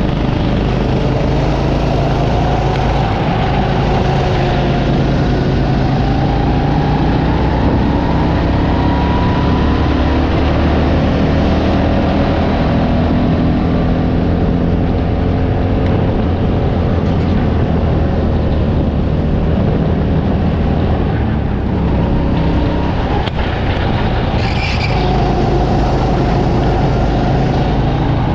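Go-kart motor running under the driver's seat at speed, its pitch rising and falling slowly with the throttle through the corners, over a steady rush of wind and track noise.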